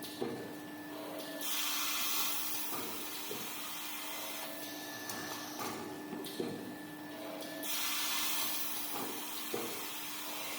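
Automatic maxi-roll paper band saw cutting machine running with a steady hum. It gives two long hissing rushes a few seconds apart, each about a second and a half, with a few short knocks in between, as it works through its cutting cycle.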